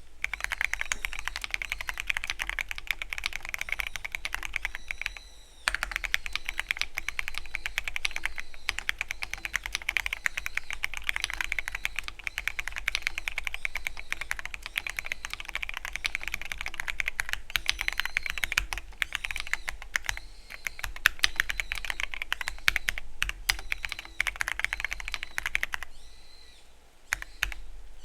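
Continuous typing on a Keychron Q13 Pro Max mechanical keyboard with linear red switches: a dense stream of key clacks, with a brief pause about five and a half seconds in and a longer one near the end.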